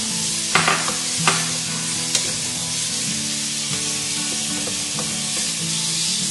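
Sliced onions, green chillies and fresh tomato slices sizzling in hot coconut oil in an aluminium pressure cooker, stirred with a wooden spatula. The spatula clicks against the pot three times in the first couple of seconds.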